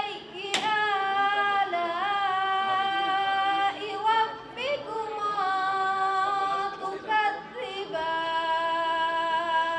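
A girl's unaccompanied voice singing into a microphone in long, held, ornamented notes, phrase after phrase with short breaths between. There is a sharp click about half a second in.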